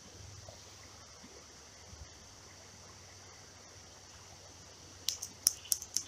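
Faint, steady trickle of a small creek, then a quick run of sharp clicks about five seconds in, from hands working a hook out of a small fish's mouth close to the microphone.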